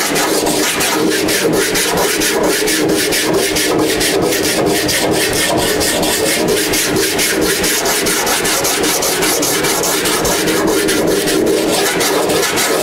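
Hand sanding block with 40-grit sandpaper rasping over body filler on a car's front fender, in quick, even back-and-forth strokes, a few a second.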